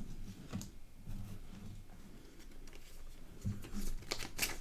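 Trading cards being handled and flipped through, faint at first, with a dull thump and then several quick sharp flicks of card edges near the end.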